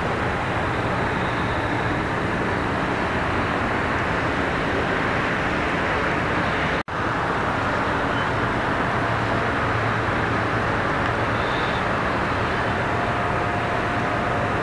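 Hitachi ZX870 long-reach excavator's diesel engine running steadily as the machine digs mud under water. The sound drops out for an instant about seven seconds in, and a steady higher tone joins near the end.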